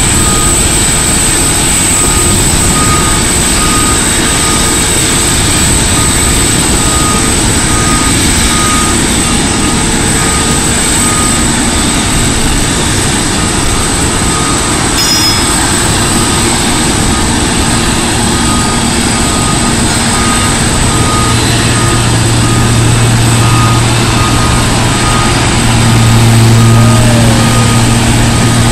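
A Boeing 747-8F freighter and its tow tug on the ramp: a steady high jet whine over a broad rumble, with a short warning beep repeating about every three quarters of a second. A heavy diesel engine note grows in the last third and is loudest a couple of seconds before the end.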